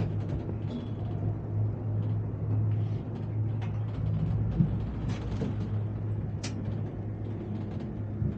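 Steady low hum inside a Ngong Ping 360 gondola cable car cabin as it rides along the rope, with faint scattered ticks and rattles.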